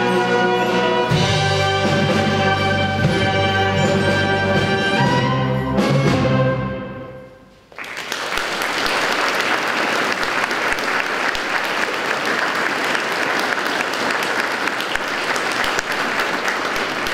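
Youth wind band of saxophones, trumpets, flutes and clarinets playing the closing bars of a piece and ending on a held chord that dies away with the church's reverberation about six seconds in. The audience then breaks into steady applause.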